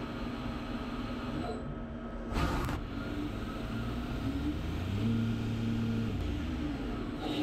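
CNC machine tool running with a steady electric hum and hiss. About two and a half seconds in comes a short burst of noise. After that, whining tones glide up and down as the drives change speed.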